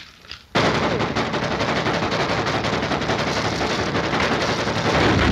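Cartoon gunfire sound effect: a fast, unbroken barrage of shots like a machine gun, starting suddenly about half a second in.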